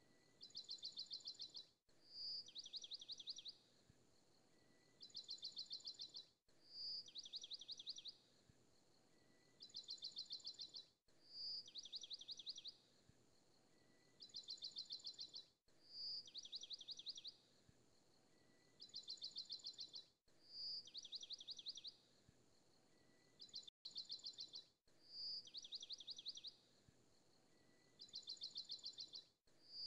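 Faint looped background track of high, bird-like chirping trills: pairs of rapid chirp runs, each about a second long, repeating identically about every four and a half seconds.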